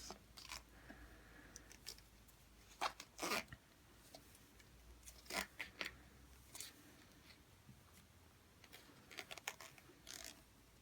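Faint, scattered rustles and scrapes of a tennis overgrip being wound around a racket handle, louder about three seconds in, again around five to six seconds, and near the end.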